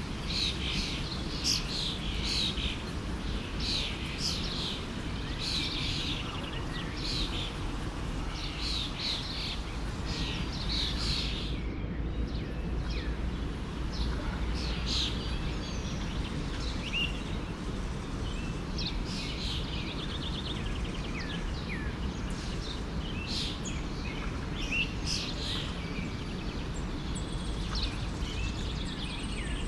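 Many songbirds chirping and calling over the steady rush of a forest stream. The calls are thick at first, drop out briefly about twelve seconds in, then come back more sparsely as single chirps and short rising whistles.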